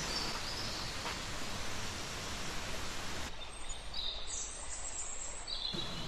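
Forest ambience: a steady rushing hiss that changes abruptly about three seconds in to a quieter background, with short high bird chirps over the last two seconds.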